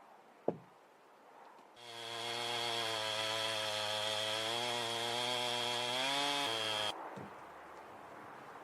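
Handheld chainsaw running under load as it rips lengthwise through a log to cut boards. It holds a steady pitch for about five seconds, shifts slightly in pitch, then drops away to a quieter noise near the end. A single sharp click comes just before it starts.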